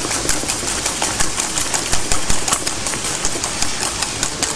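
Wire whisk beating thick mashed-potato pancake batter in a stainless steel bowl, working in egg whites: quick, even strokes clicking against the metal several times a second.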